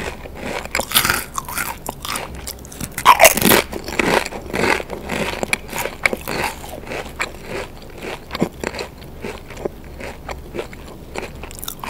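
Pringles potato crisps bitten and chewed close to a sensitive microphone: sharp, crackling crunches, loudest about three seconds in, then settling into steady, softer chewing crunches.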